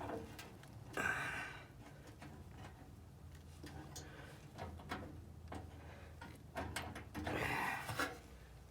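Faint, scattered clicks and scrapes of a hand working a snap-in safety part loose inside a gas water heater's burner compartment, with two louder noisy swells, one about a second in and one near the end.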